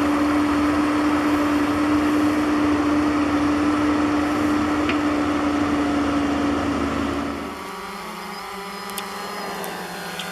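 Bobcat E50 mini excavator's diesel engine running steadily under throttle, then dropping to a lower, quieter speed near the end.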